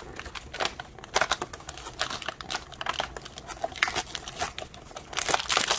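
Cardboard and clear plastic toy packaging crinkling and crackling as the front of the box is pried open and lifted off by hand, thickest near the end.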